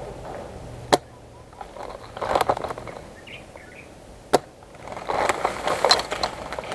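Two sharp single airsoft gun shots about three and a half seconds apart, with tall grass rustling against the gun between them and again near the end.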